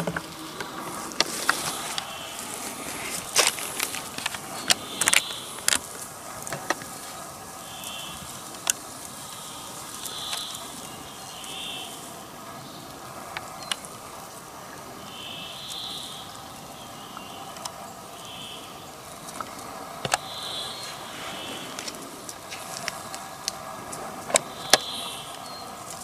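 Outdoor forest ambience: irregular sharp clicks and snaps, with a short high call repeating every second or two over a faint steady background.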